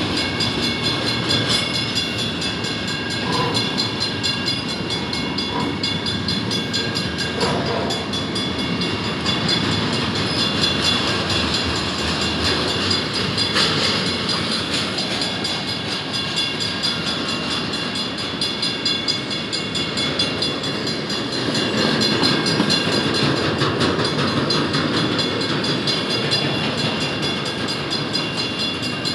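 Double-stack container well cars of a freight train rolling past: a steady rumble of steel wheels on rail, with steady high-pitched tones riding over it.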